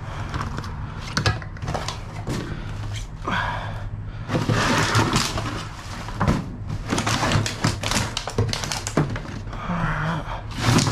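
Scrap items being pulled out and handled in a dumpster: irregular knocks and clunks with bouts of scraping and rustling, over a steady low hum.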